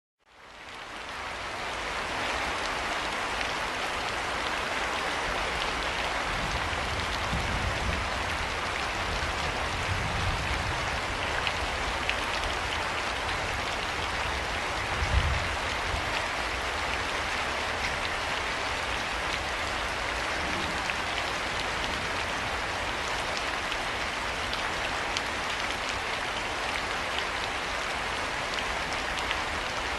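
Steady rain falling, a dense even hiss with scattered close drop ticks, fading in over the first couple of seconds. A brief low thump about halfway through.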